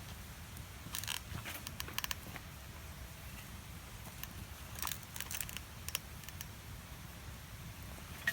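Scattered light clicks and crackles over a low steady rumble.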